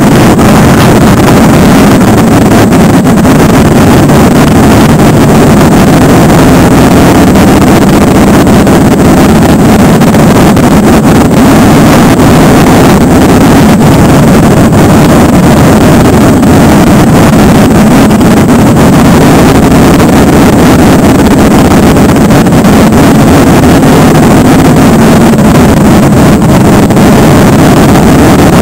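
Motorcycle riding at highway speed: a loud, steady rush of wind over the bike-mounted microphone mixed with the engine's drone.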